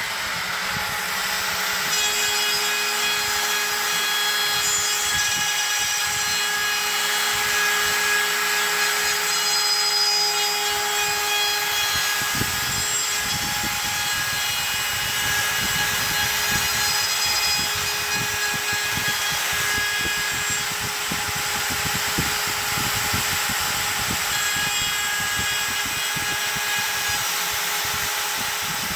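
X-Carve CNC router's spindle running steadily as its cutter mills a bar clamped on the bed. A rough, rattling cutting noise joins about halfway through.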